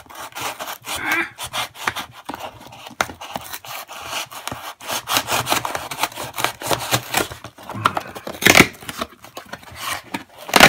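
Folding knife sawing through corrugated cardboard along a shipping box's seam: a quick, irregular run of rasping strokes, with a couple of louder rips near the end.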